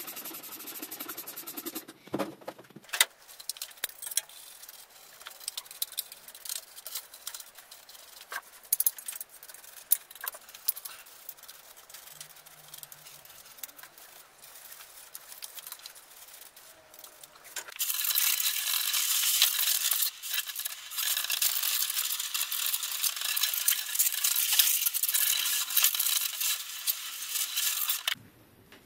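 A bicycle frame being washed by hand. A brief hiss of spraying, then a brush scrubbing the frame with scattered clicks and knocks. A little past halfway a loud steady hiss of water spray starts rinsing the frame and cuts off suddenly shortly before the end.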